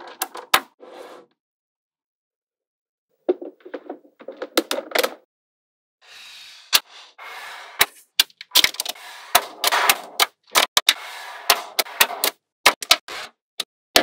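Small magnetic balls clicking sharply as they snap together in rows, with a stretch of denser rattling clatter in the middle as whole strips of balls are handled and laid down. Silent for about two seconds near the start.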